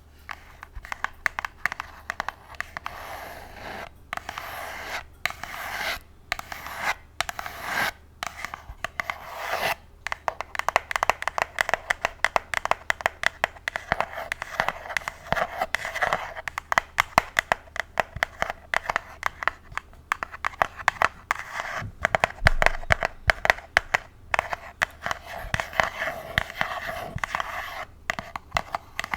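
Extra-long fake nails scratching a pink box close to the microphone: rapid, dense strokes with a few brief pauses.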